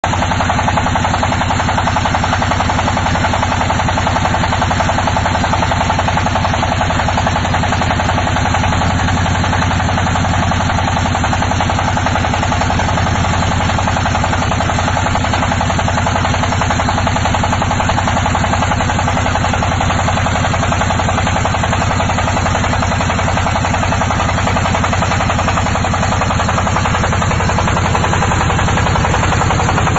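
Water well drilling rig running steadily: its engine drones without change, with a fast, even knocking beat throughout.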